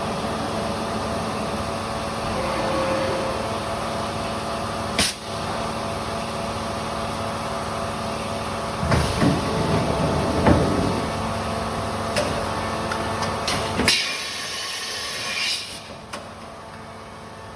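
Workshop machinery running with a steady hum, broken by sharp metallic knocks and louder clattering stretches. The hum cuts off suddenly near the end.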